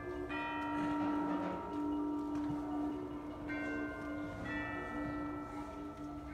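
Middle school concert band playing a slow passage of held chords, with tubular chimes ringing over the winds; new chords come in a few times.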